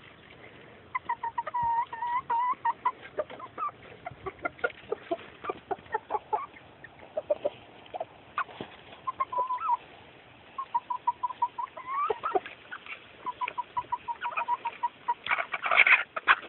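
Chickens clucking: several runs of quick, evenly spaced clucks, with short sharp sounds scattered between them and a louder, harsher burst near the end.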